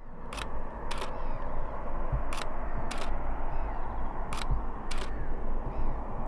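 DSLR shutter firing for an interval time-lapse: pairs of clicks about half a second apart, the shutter opening and closing on a half-second exposure, repeating every two seconds. Under them runs a steady rushing noise with a low rumble.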